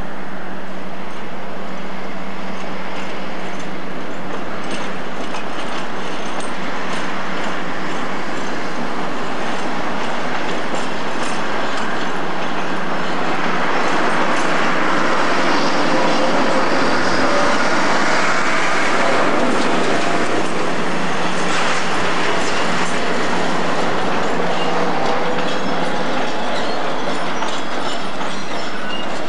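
Diesel locomotive hauling a train of loaded coal hopper wagons past, engine and wheels on the rails growing louder as it comes closest about halfway through. Faint wheel squeal from the wagons on the curve.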